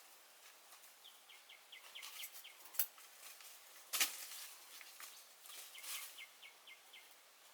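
Steady rain hiss with scattered sharp drips, the loudest about four seconds in. Twice, a bird calls a quick run of short high chips.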